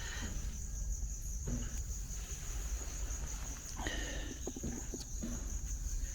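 A steady high-pitched insect trill runs throughout. Faint background voices come in about four seconds in.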